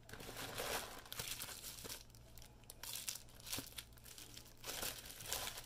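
Packaging crinkling and rustling in several short, irregular bursts as items are handled, with a sharp tap about three and a half seconds in.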